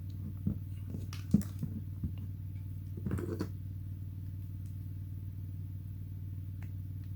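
Small clicks and knocks as a USB cable is plugged into a power bank's port and the devices are handled, with a brief rustle about three seconds in, over a steady low hum.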